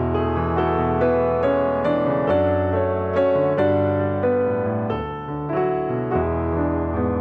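Background piano music: a steady melody of notes over sustained low bass notes.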